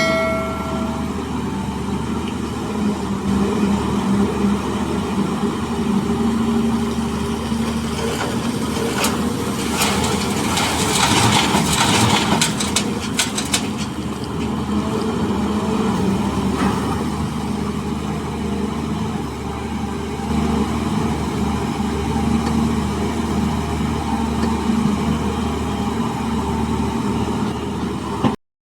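Heavy diesel machinery running steadily, an excavator working beside a dump truck. A short pitched tone like a horn or beep sounds at the very start, and a stretch of clattering and scraping runs from about 9 to 14 seconds in, typical of material being loaded.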